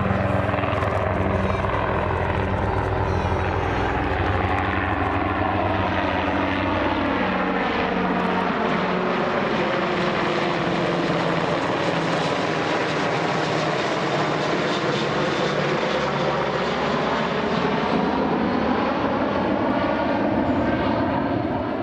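Two UH-60J Black Hawk rescue helicopters and a U-125A twin-engine jet flying past overhead in close formation: a steady combined rotor beat and engine noise. The low helicopter rotor beat is strongest in the first several seconds.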